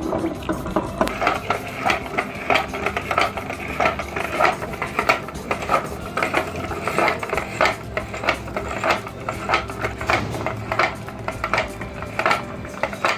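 Meat grinder crushing crisp ice cream cones: rapid, irregular crunching and cracking over a steady low motor hum, cutting off suddenly at the end.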